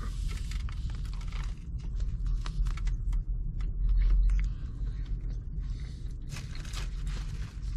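A man chewing a bite of burger, with small clicks and rustles as the burger is handled and set down on a paper-lined tray, over a steady low hum inside a car cabin.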